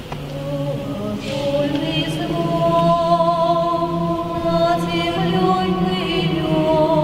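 A vocal ensemble singing long, sustained chords that swell louder over the first few seconds.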